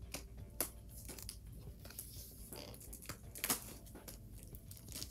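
Plastic shrink wrap on a MacBook Air box being peeled off by its pull tab, crinkling and tearing in a run of irregular crackles.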